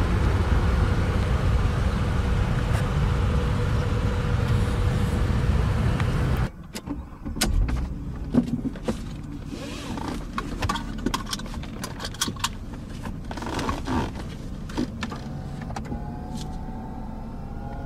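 A steady, loud rumbling noise for about six seconds, then, after a sudden drop, a run of scattered clicks and knocks from handling the Mercedes-Benz CLS 350. Near the end an electric motor starts and runs steadily, the whir of a car's power window.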